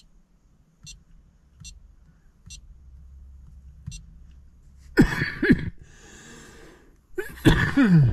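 Chevrolet Silverado truck being started: faint ticks about once a second, then two loud bursts, each with a tone falling in pitch.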